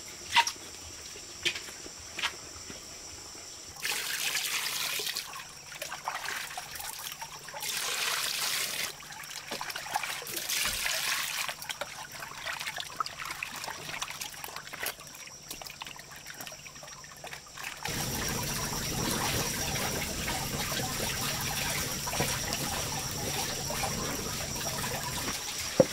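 Hands splashing and swishing peeled bamboo shoots in a pot of water, with trickling in uneven bursts. From about two-thirds of the way in, a steady rushing hiss of an open wood fire burning under a cast-iron pot. There are a few sharp clicks at the start.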